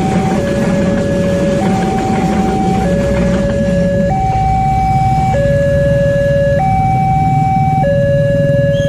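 Railway level-crossing warning alarm: an electronic two-tone signal alternating between a lower and a higher pitch, each held about a second and a quarter. A passing train's low rumble runs under it and fades out about three and a half seconds in.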